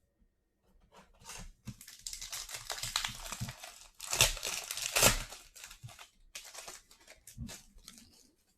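Foil wrapper of a Panini Legacy Football trading-card pack being torn open and crinkled by hand. There is a long stretch of rustling and tearing, loudest about four and five seconds in.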